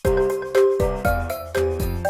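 Background music: a bright, upbeat tune with chiming, bell-like notes over a steady beat and bass.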